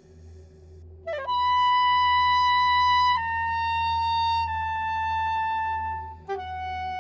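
Soprano saxophone playing solo. After about a second of only a low hum, a quick grace-note flourish rises to a long held high note, which slides down in two small steps in pitch; near the end a fresh attack starts a lower held note. A low steady hum lies beneath.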